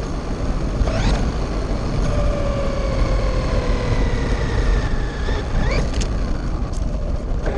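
Electric motor of a Traxxas RC car running on a 3S battery with 18/54 gearing, whining up in quick accelerations about a second in and again near the end, with a long, slowly falling whine in between as it runs on. A steady low rumble underneath.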